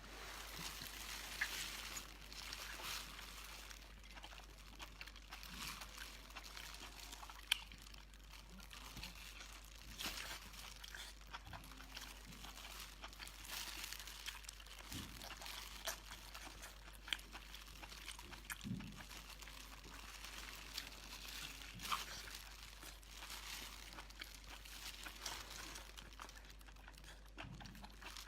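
Faint, irregular crunching and crinkling of someone eating, with small clicks scattered throughout.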